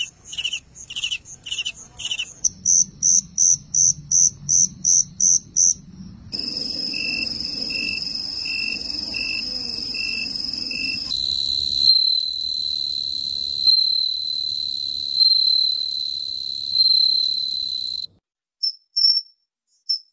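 Several crickets and katydids calling one after another. First a cricket chirps in regular, quick chirps, about two to three a second. Then come higher chirps, a tree cricket's steady high trill, a continuous high tone swelling every second or two, and after a short silence a katydid's brief sharp chirps.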